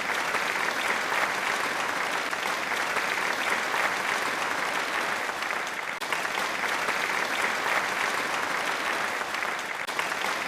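Applause: steady, dense clapping.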